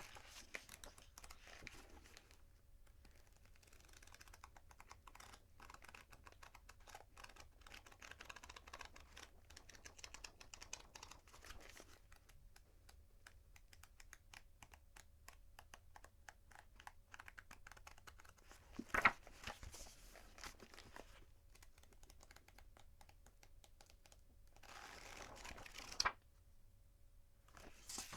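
Pages of a paper book being handled: a quiet, dense run of small paper ticks and rustles, with a louder page turn about two-thirds through and another near the end.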